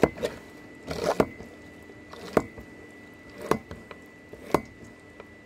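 A collapsible plastic-and-silicone colander holding washed eggplant slices being handled, giving sharp clicks and knocks about once a second with a short wet rustle about a second in.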